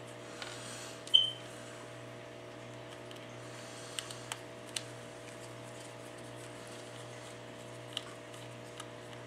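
Small precision screwdriver working the screws of a phone's metal midframe: a few light clicks, with one sharper metallic tick that briefly rings about a second in. A steady low electrical hum runs underneath.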